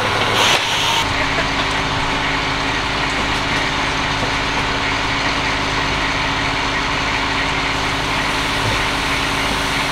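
An engine running steadily at an even speed, with a steady hum that settles in about a second in; a short hiss comes just before it.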